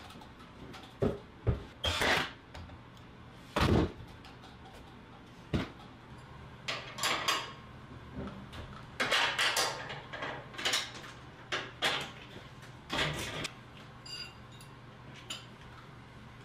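Irregular knocks, clunks and short scraping clatters of hands-on shop work: a plywood cabinet being shifted on a wooden bench, then metal castors being worked loose from a steel drum sander stand and handled.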